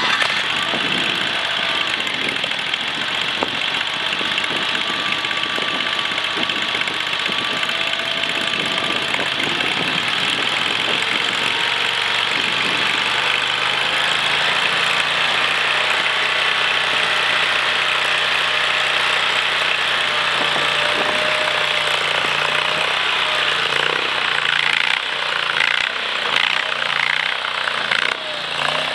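AGT LRT23 mini skid steer's engine running steadily just after starting, its sound wavering a few seconds before the end.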